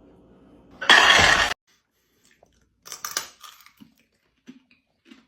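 A refrigerator ice maker drops a loud burst of ice cubes that cuts off sharply, followed by a few crunches and small clicks.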